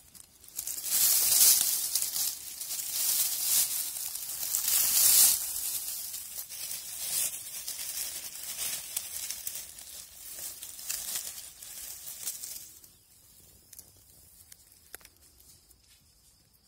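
Dry fallen leaves rustling and crinkling as a hand brushes through the leaf litter around a porcini mushroom, loudest in the first five seconds and dying away after about twelve seconds.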